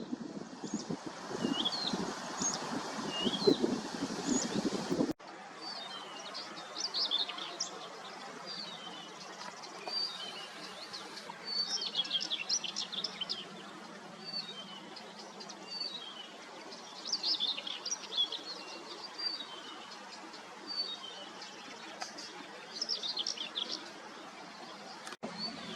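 Small birds singing, with a quick run of high chirps and trills. Wind rumbles on the microphone for the first five seconds, then stops at a sudden cut.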